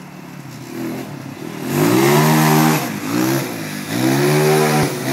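Crossfire Mustang Evo 2 quad's 250cc water-cooled four-stroke engine, fitted with a Mikuni 30 mm carburettor, revving hard as the ATV is drifted. The engine note is low at first, climbs about a second and a half in, then falls back and surges again several times.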